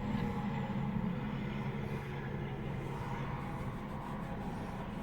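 Car engine and road noise while driving: a steady low drone.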